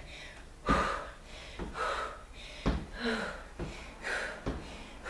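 A woman breathing hard from exertion during plank knee twists, forceful exhales about once a second.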